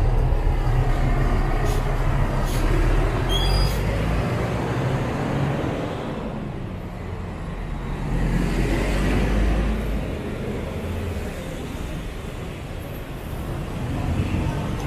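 Road traffic noise: vehicle engines running and a steady low rumble from cars and buses on a busy street, easing off a little around the middle.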